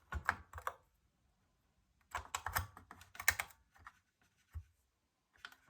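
Short bursts of small clicks and rattles from the opened multimeter's case and parts being handled. There is a cluster at the start, a longer cluster in the middle, and a couple of single clicks near the end.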